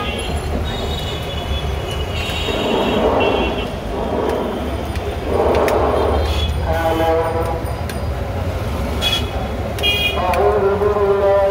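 Busy street traffic noise: a steady engine rumble with several short vehicle horn toots and some voices.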